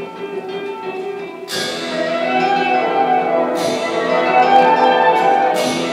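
Background music: held notes, with a sharp struck note about every two seconds that rings on, growing louder after the first strike.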